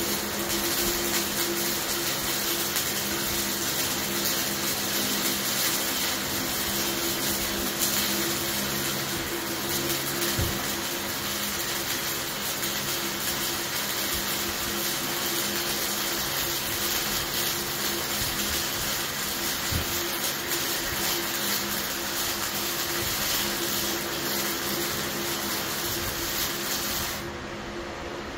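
Harbor Freight flux-core wire-feed welder running a practice bead: a steady crackling, sizzling arc over a low hum, which cuts off near the end.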